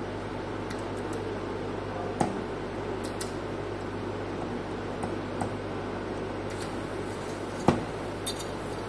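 Stainless-steel print-head cover of a Videojet 1000-series continuous inkjet printer being loosened and pulled off by hand: a scatter of light metal clicks and taps, the sharpest about three-quarters of the way through, over a steady low hum.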